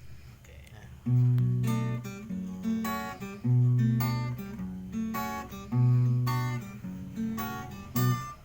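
Acoustic guitar playing a song's intro, starting about a second in: a strong low bass note roughly every two and a half seconds with plucked and strummed chords between them.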